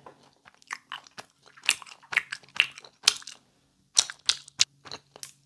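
A person chewing a strawberry peelable gummy candy in her mouth: a run of short, irregular smacks and clicks, picked up close by a clip-on microphone.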